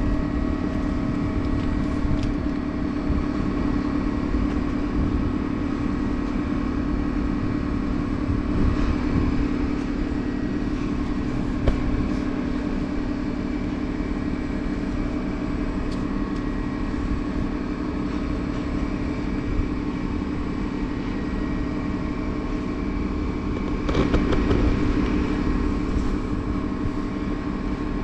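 Standing electric locomotive running at rest, its equipment giving a steady, even hum. A brief louder rush of noise comes near the end.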